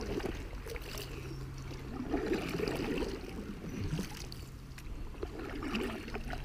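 Paddle strokes in river water beside an inflatable canoe, a stroke every few seconds, with small splashes and water trickling and lapping at the hull.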